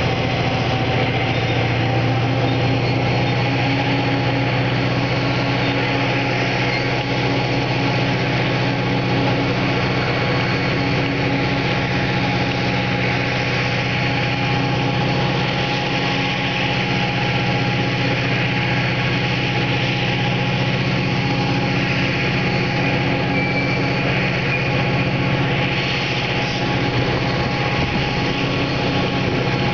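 Diesel locomotive engine running steadily at low power, a deep drone with a steady whine over it, as a cut of covered hopper cars moves slowly through the rail yard.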